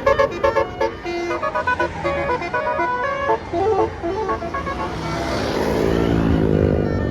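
A bus's Basuri telolet horn plays a quick melody of short, stepped tones. Then the bus passes close, its engine and tyre noise swelling, with the engine pitch sliding.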